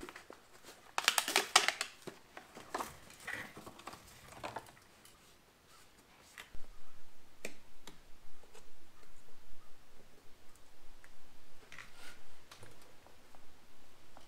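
Hands handling an oil filter's packaging and a plastic oil bottle: a burst of crisp rustling about a second in, more rustling a little later, then scattered light clicks and taps.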